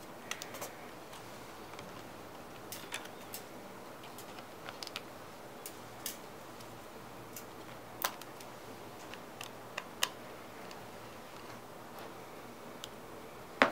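Scattered small clicks and taps of fingers and a plastic spudger prying at parts inside an opened MacBook Pro, irregular and sharp, with the loudest click near the end.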